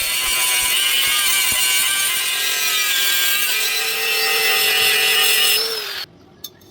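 Steady loud hiss with whining tones from metalworking on thin metal, typical of a grinder or welder at work, that stops abruptly about six seconds in, its whine dropping slightly as it stops. A faint tick follows.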